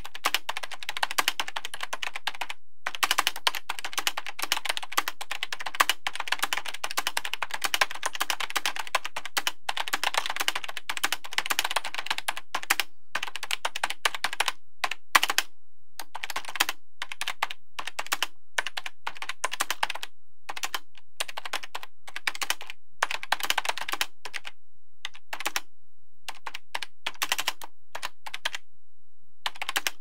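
Typing on a computer keyboard: fast runs of keystrokes broken by short pauses, with the pauses more frequent in the second half.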